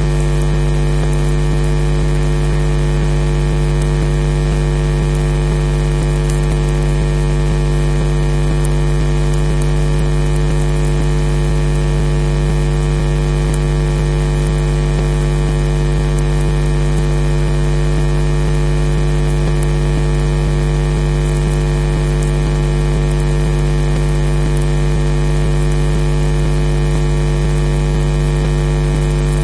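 Loud, steady electrical mains hum and buzz with hiss over it, unchanging throughout. It is interference on the nest camera's audio line.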